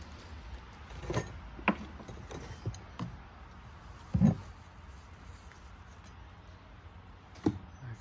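Small objects being handled and set down: scattered clicks and knocks, with a heavier thud about four seconds in and a sharp knock near the end.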